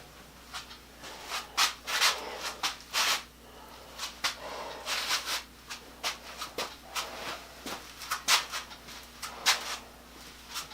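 Objects being handled: scattered knocks and clicks with stretches of rubbing and scraping, irregular throughout.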